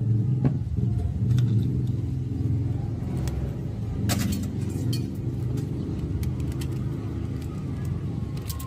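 Scattered light clicks and clinks of copper wire being unwound from a toroidal transformer core, over a steady low rumble that is the loudest sound throughout.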